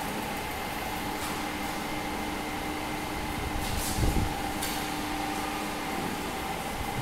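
Steady hum of a packaged drinking water plant's machinery, with faint steady whining tones and a few light clicks; a low thump about four seconds in.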